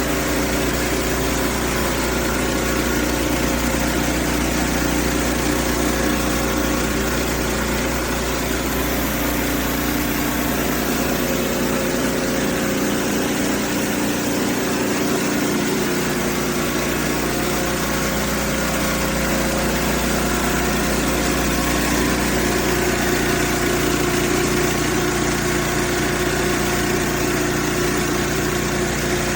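Pressure washer running steadily, an engine hum with an even hiss over it.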